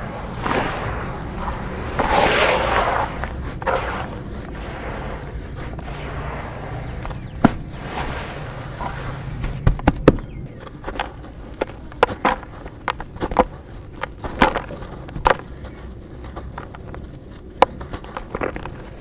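Lumps of dirt being crumbled and crushed: a gritty crumbling rush over the first few seconds, loudest about two seconds in, then scattered sharp crunches and cracks as pieces snap.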